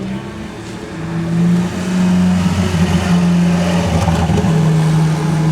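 A car engine running close by at a steady pitch, getting louder about a second in, with small wavers in pitch mid-way.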